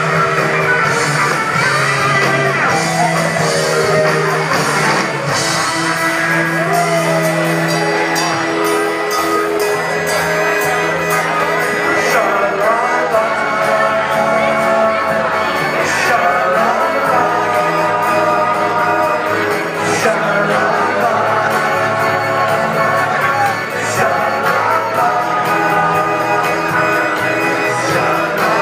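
Live rock band playing a song with sung vocals over guitar, bass and drums, with occasional shouts.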